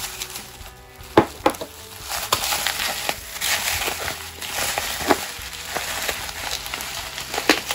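Plastic bubble wrap being pulled off a box and crumpled in the hand: continuous crinkling and rustling with several sharp snaps.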